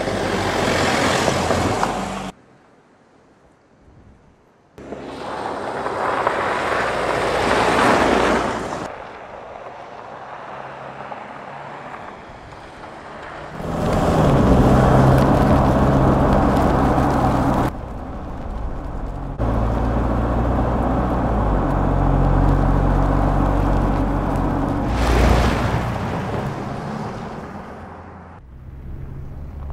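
Mercedes-Benz GLE 250 d SUV driving off road in a run of short clips that change suddenly. In the first part it twice swells up and dies away. Later its four-cylinder turbodiesel runs steadily with a low drone.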